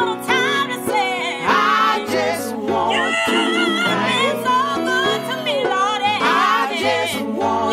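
Gospel song playing: several singing voices with wide vibrato over a stepping bass line and light percussion.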